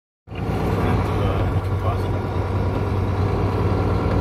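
Steady low drone of a truck's engine and road noise heard from inside the cab while driving, starting about a quarter second in.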